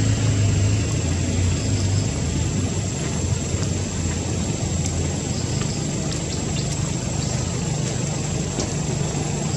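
Steady low engine drone from a distant motor, stronger in the first couple of seconds, easing off, then building again near the end, with a thin steady high whine above it.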